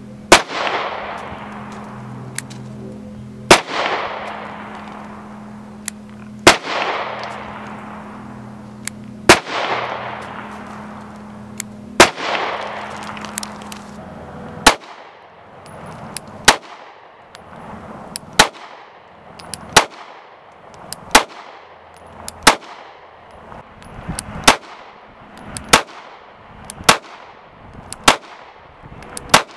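Single shots from Springfield Armory Hellcat micro-compact 9mm pistols, the compensated Hellcat RDP and the original Hellcat. Five slow shots come about three seconds apart, each with a long echoing tail, then a steadier string of about eleven shots, roughly one every second and a half.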